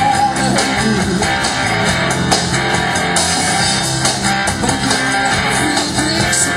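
Rock music: a band with strummed electric guitar and drum kit playing an instrumental passage.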